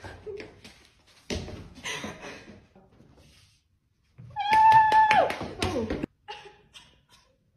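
A person's loud, high held wail that slides down in pitch at the end, about four and a half seconds in, preceded by scuffling and rustling noises.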